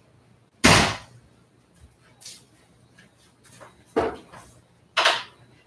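Loud knocks and thumps of things being handled while a room is tidied: a sharp bang about half a second in, then two more knocks about four and five seconds in, with a few faint bumps between.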